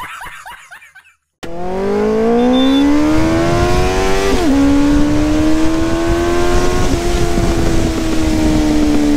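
A man laughing briefly, then a Benelli motorcycle engine accelerating hard: its pitch climbs, drops at an upshift about four and a half seconds in, and then pulls steadily at speed.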